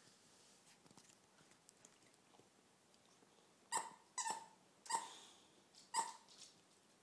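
Squeaky ball toy squeaking four times in quick succession as a boxer bites down on it, about four seconds in, with soft gnawing between.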